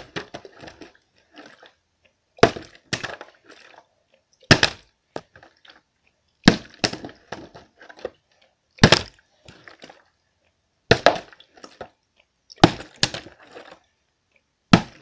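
A plastic water bottle partly filled with water, flipped and landing on a hard surface about every two seconds: each landing is a sharp knock, often followed by a second knock and a short clatter as it bounces or topples over.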